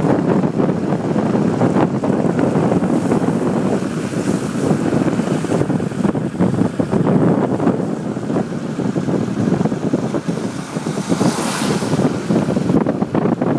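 Car driving through floodwater: continuous rushing and splashing of water thrown up by the wheels, mixed with wind on the microphone. A sharper hissing splash rises about eleven seconds in.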